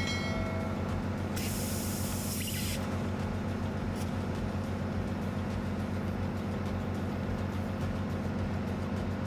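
A short blast of compressed-air hiss, about a second and a half long, starting just over a second in, over a steady low drone.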